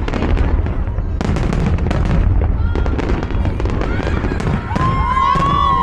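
Aerial fireworks going off in quick succession: a dense string of sharp bangs and crackles over heavy low booms.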